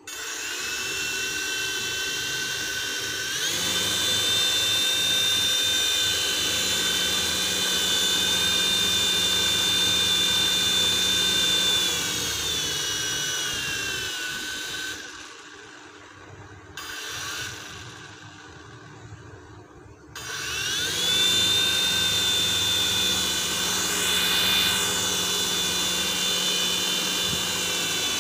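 Toy infrared remote-control helicopter's small electric motors whining as its main rotors spin while it is held in the hand. The whine rises in pitch a few seconds in, winds down and nearly stops around the middle, then spins back up about two-thirds of the way through.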